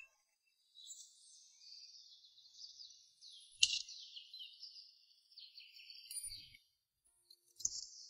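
Faint, high-pitched chirping, like birds in a background ambience. A light click comes about three and a half seconds in, and another near the end.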